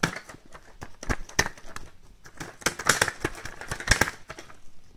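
Irregular clicks, taps and rustling as a homemade straw-and-balloon toy is swung and handled close to the phone's microphone.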